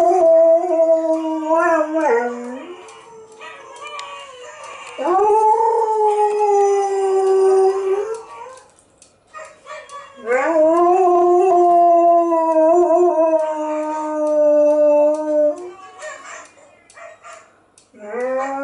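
Czechoslovakian Wolfdog howling: a series of long, fairly steady howls with pauses between, each dropping in pitch as it ends. The longest lasts about five seconds, and another howl begins near the end.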